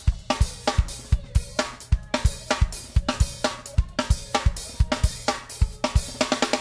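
Music with a fast, steady drum-kit beat: kick drum, snare and cymbals.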